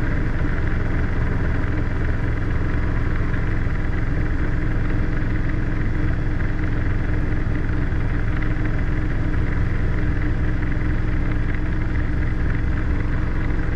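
Robinson R22 helicopter's engine and two-blade rotor heard from inside the cabin, a steady, unchanging drone with a constant low hum as the helicopter hovers a few feet up and makes a slow pedal turn.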